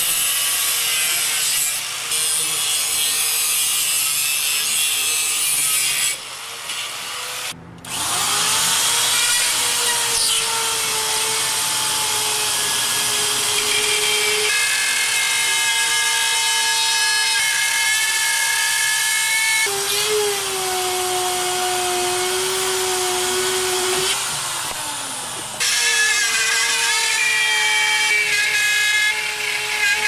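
Small electric angle grinder cutting into a wall corner and its steel corner bead: a steady high whine whose pitch sags and recovers as the disc bites. The sound breaks off and resumes abruptly several times, with a brief dropout about eight seconds in.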